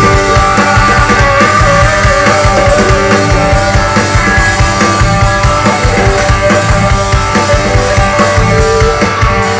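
Rock band playing live, loud: electric guitars and drum kit.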